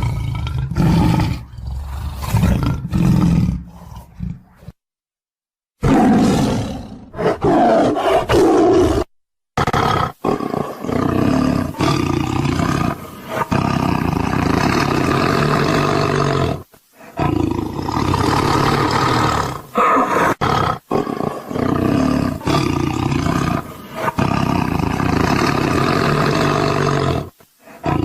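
Tiger roaring over and over in a string of loud calls. Twice in the first third the sound cuts out abruptly into dead silence for a moment.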